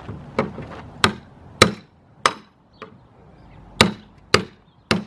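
Repeated heavy blows from a hand tool striking a metal overlay glued onto a wood panel, a test of whether the adhesive bond holds. There are about eight blows, roughly two a second, with a pause near the middle.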